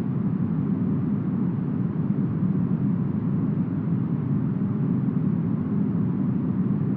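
Steady, smoothed brown noise styled as deep forest wind: an even, unchanging hiss with most of its weight low down and almost no treble.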